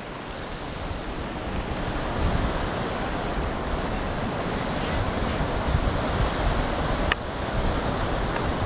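Wind buffeting the microphone over a steady wash of gentle surf on the shore, with a single brief click about seven seconds in.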